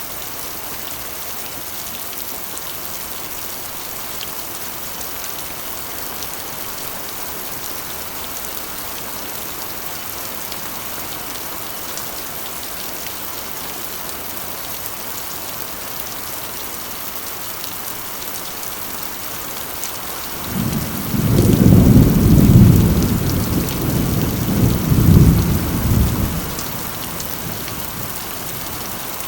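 Steady rain drumming on a corrugated iron roof. About two-thirds of the way through, a low rumble of thunder rolls in for some six seconds, swelling twice before it fades back under the rain.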